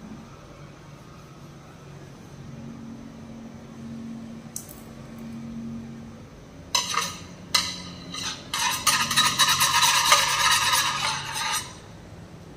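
A thin rod scraped rapidly back and forth across the glazed surface of printed ceramic tiles: a few short scrapes about seven seconds in, then about three seconds of continuous scratching that stops suddenly.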